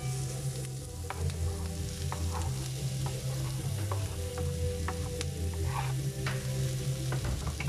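Diced onion and carrot sizzling in a frying pan while a wooden spatula scrapes and clicks against the pan as they are stirred. About four seconds in, potato chunks are tipped into the pan, then stirred in.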